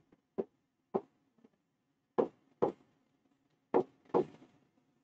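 A stylus pen tapping against the glass of an interactive touchscreen whiteboard as orbital boxes are drawn: about six short, sharp taps, irregularly spaced.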